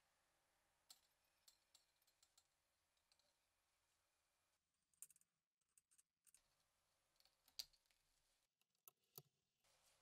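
Near silence broken by faint scattered small clicks of metal tweezers touching a small padlock as a plate is set onto its face. The sharpest click comes about three-quarters of the way through.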